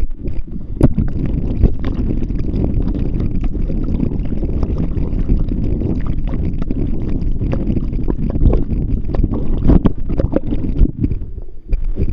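Muffled rushing and gurgling of water with irregular knocks and thumps, heard through a camera held underwater beside a kayak.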